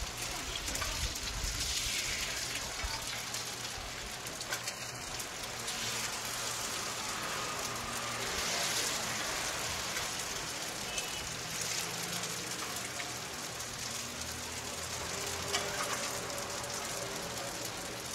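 Eggs and thin wrappers sizzling on a flat steel griddle in a steady hiss, with a few brief scrapes and taps of metal spatulas on the plate.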